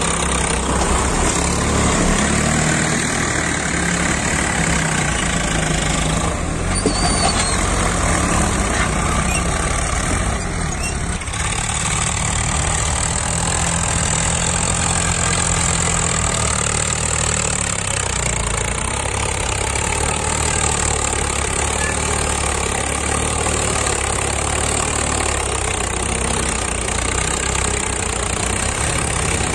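Swaraj tractors' diesel engines running steadily under load as they pull sand-levelling blades through loose sand.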